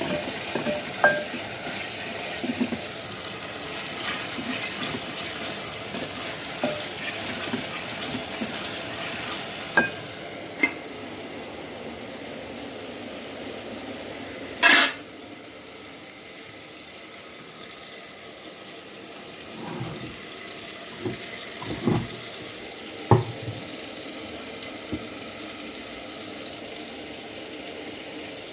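Kitchen work: pots, dishes and utensils clinking and knocking over a steady hiss that drops off about ten seconds in, with one sharp clatter near the middle and a few dull knocks later.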